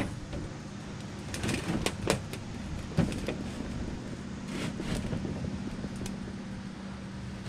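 A sheet of metal being handled and shifted on a workbench, giving a few short knocks and scrapes, over a steady low hum.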